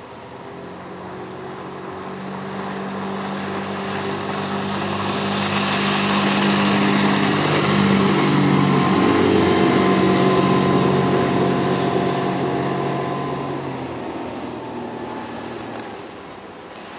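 Outboard motor of a Sibir 460 plastic motorboat running at speed as the boat passes by. The steady engine hum, with a rushing hiss of water and spray over it, swells to its loudest about halfway through and then fades away.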